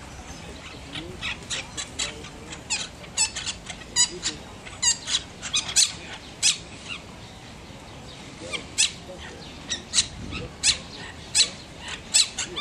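Monk parakeets calling: short, sharp chirps and squeaks that come irregularly, sometimes several a second, with brief pauses between bursts.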